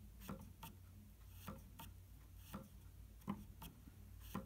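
Faint wooden clicks and knocks from a Viennese fortepiano's key action worked by hand, mostly in pairs about a second apart, as the key goes down and comes back up. The escapement trips and the jack goes back under quickly, the sign of good repetition.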